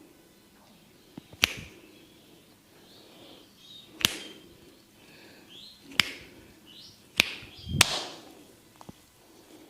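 Sharp hand slaps of a barber's head and shoulder massage: five crisp strikes spaced irregularly, two close together near the end, the last one fuller. Birds chirp faintly between them.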